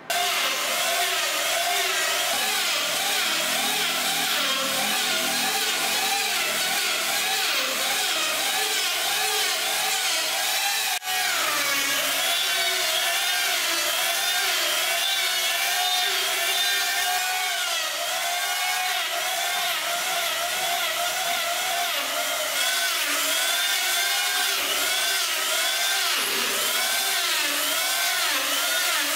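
Handheld electric power planer and electric sander working a wooden stair-rail post, the motor pitch wavering up and down as the tool loads into the wood. A short break about eleven seconds in.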